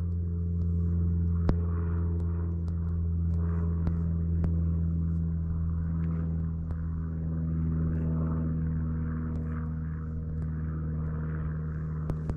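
A steady, low engine drone with an even hum that does not rise or fall, and a few sharp clicks.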